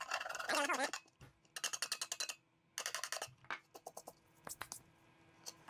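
Scraping and picking at a lamp globe to clear off small leftover shards. The sound comes as quick runs of scratchy clicks, two longer runs in the middle, then scattered ticks.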